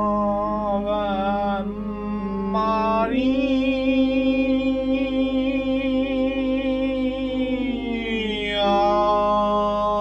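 Chant sung in long held notes over a steady low drone, the pitch changing a few times and one note held for about five seconds.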